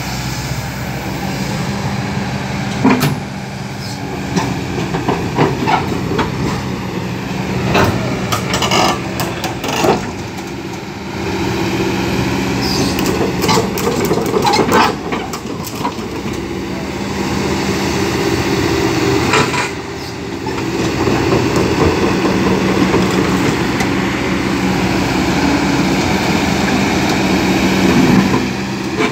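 Kobelco SK220XD LC crawler excavator's diesel engine running steadily, with sharp metallic clanks and knocks that come and go, heaviest in the first half, as the machine works.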